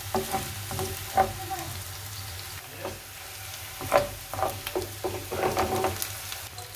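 Chopped onions sizzling in hot oil in a frying pan, stirred with a wooden spoon that scrapes and knocks against the pan, with tomato paste being worked in. The sharpest knock comes about four seconds in.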